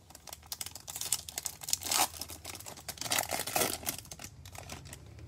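Foil wrapper of a Topps Chrome baseball card pack crinkling and tearing as gloved hands rip it open, a dense run of rapid crackles that is loudest about two seconds in and again around three seconds.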